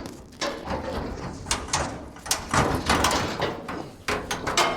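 Sheet-metal floor pan clanking, knocking and scraping against the truck cab as it is pried and wrestled loose, in a rapid run of irregular metal knocks. The pan is hung up, which the workers think is on a spot weld they did not drill out.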